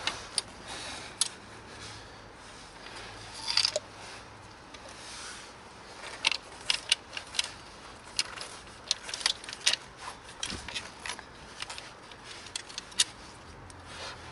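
Steel links of a Maggi Trak snow chain clinking and its tensioning mechanism clicking as the chain is handled and tightened on a car wheel. Irregular sharp clicks and jingles, busiest in the second half.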